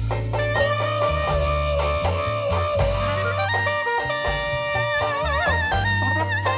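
Traditional jazz band playing an instrumental passage: wind instruments hold long notes with vibrato over a stepping bass line and drums.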